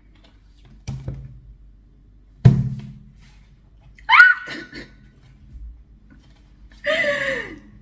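A light knock and then a louder thud as the album's pieces are handled, followed by two short high-pitched squeals of excitement, the second sliding down in pitch.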